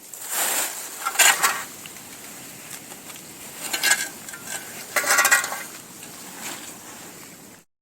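Four short bursts of rustling, clinking handling noise over a quiet hiss.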